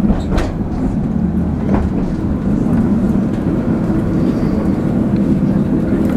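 Inside an Alstom Citadis 302 tram running along the track: a steady low rumble with a couple of light clicks in the first two seconds.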